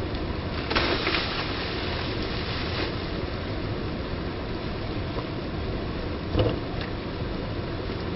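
Steady rush of a stream pouring over a small rocky waterfall, with a brief splash about a second in and a short thump about six seconds in.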